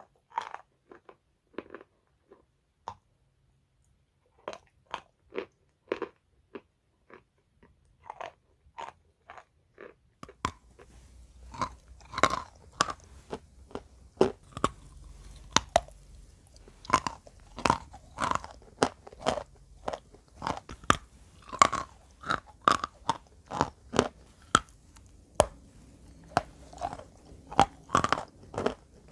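Close-miked chewing of wet chalk, crunching with each bite. The crunches are sparse and soft for about the first ten seconds, then come louder and closer together, about two a second, over a faint low hum.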